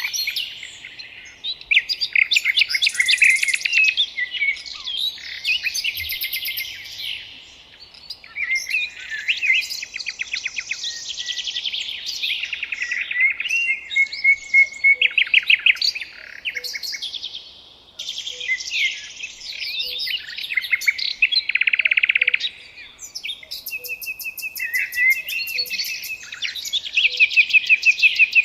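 Several songbirds singing in overlapping phrases, with trills and rapid runs of repeated notes, one song following another without a break.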